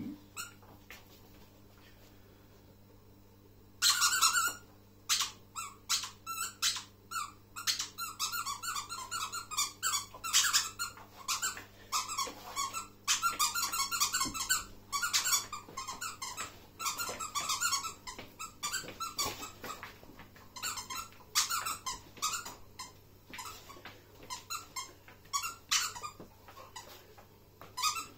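A squeaky dog toy squeaked over and over in quick runs of short, high squeaks, starting about four seconds in.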